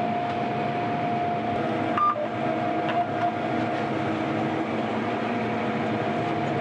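Combine harvester running steadily, heard from inside the cab: an even machine drone with a constant high whine over it and a short beep about two seconds in.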